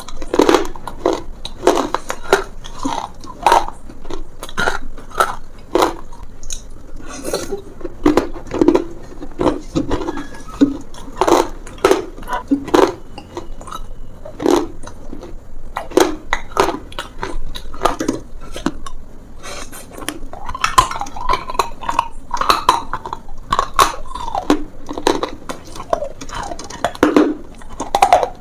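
Brittle, chalky material being bitten and chewed close to the microphone: a run of irregular, sharp crunches, several a second at times.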